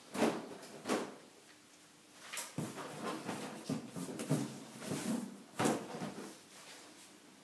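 Large cardboard box being handled and rummaged in: cardboard scraping, rustling and knocking. Two sharp knocks come in the first second, then a busier stretch of irregular knocks and rustles from about two and a half seconds in until about six.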